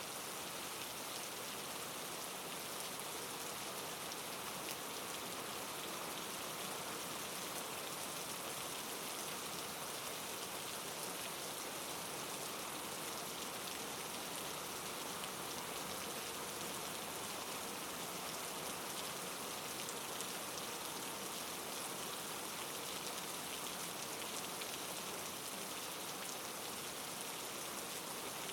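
Steady rain falling, billed as rainforest rain: an even hiss of countless drops with fine ticks of single drops in it, holding at one level throughout.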